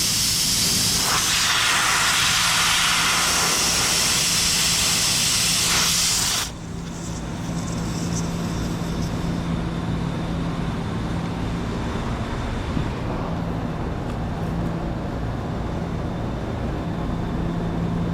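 Loud steady hiss of rushing air that cuts off suddenly about six and a half seconds in, leaving a quieter steady mechanical hum.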